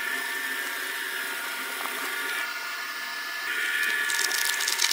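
Electric twin-shaft shredder running with a steady whine while its cutters grind up the last fragments of a clear plastic cup. A louder burst of crackling comes near the end.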